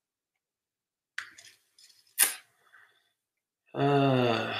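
A few short clicks and then one sharp, louder click about two seconds in. A man's drawn-out 'umm' of hesitation follows near the end.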